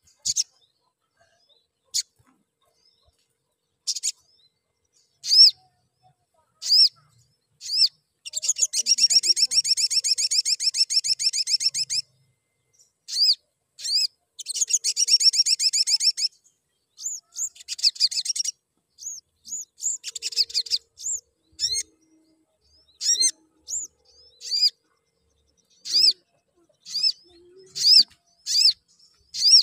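Male olive-backed sunbird (sogon) calling with sharp high chirps, spaced a second or two apart at first. Two long rapid trills break in through the middle, and the chirps then come quicker near the end.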